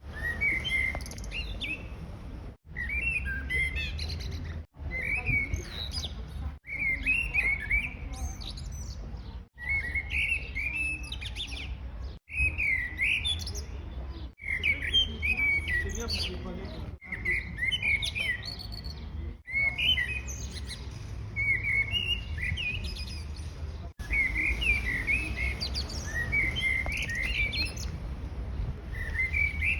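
Small birds chirping and twittering in quick, warbling phrases. The sound cuts out abruptly every few seconds, as if spliced from short pieces.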